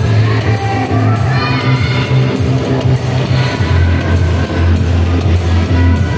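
Background music with a strong bass line, playing without a break.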